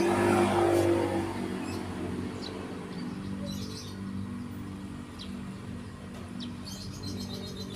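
Small birds chirping now and then over a steady low hum, with a louder rush of noise in the first second.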